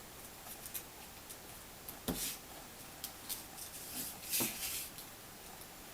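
Faint clicks and taps of soldering work on a mouse's circuit board as solder goes onto a switch pin, with two louder short noisy bursts about two seconds in and about four and a half seconds in.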